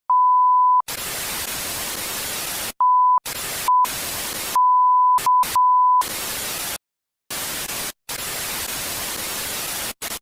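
Television static hiss that cuts on and off abruptly, with short silent gaps. In the first six seconds it alternates with six loud, steady beeps of one test-tone pitch. The last three beeps come close together, and the beeps are louder than the static.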